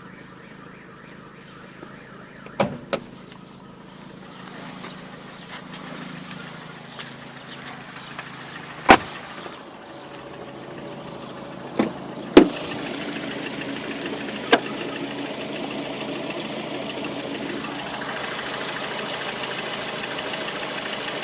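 Hot Lada Priora VAZ-21126 1.6-litre sixteen-valve four-cylinder engine idling, joined by a few sharp clunks in the first half. From about twelve seconds the engine comes through louder with a steady, diesel-like clatter, the piston knock that a service station put down to a worn piston group needing replacement.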